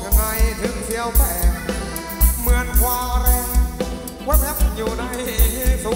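Live band playing Thai ramwong dance music, with a steady, loud bass-drum beat under a sliding melody line.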